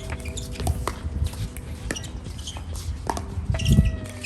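Pickleball play: a scatter of sharp plastic knocks from paddles striking the ball and the ball bouncing on the court, over a low rumble of wind buffeting the microphone that swells into a loud gust near the end.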